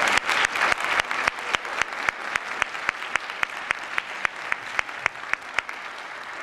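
Audience applause dying down: dense clapping at first, thinning to scattered single claps and fading out near the end.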